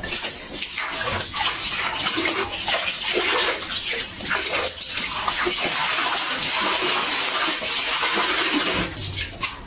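Steady running water that eases off about nine seconds in.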